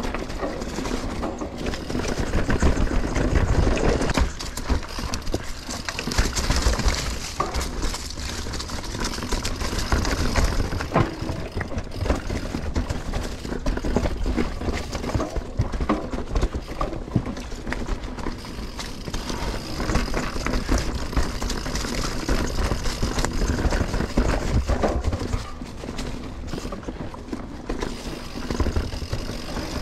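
Mountain bike riding down a dirt bike-park trail: tyres rolling on dirt and the bike rattling over bumps, with a low rumble of wind on the microphone.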